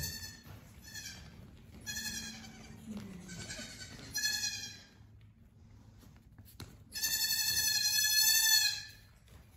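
Goat kids bleating: several short, high-pitched bleats in the first half, then after a pause one long, loud bleat about seven seconds in that lasts nearly two seconds.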